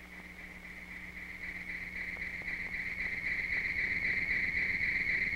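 Steady high-pitched insect chirring that grows gradually louder, over a faint low hum.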